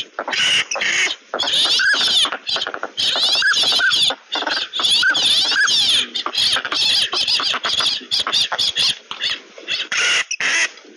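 A flock of northern pintails and other ducks calling: repeated short whistles that rise and fall, over a dense chorus of higher whistles and chatter.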